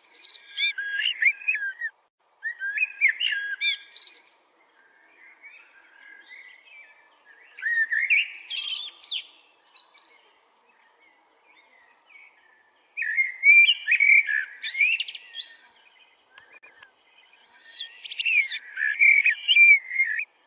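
A bird singing in five short bursts of quick, chattering high notes, each lasting two to three seconds, with fainter calls in the gaps between them.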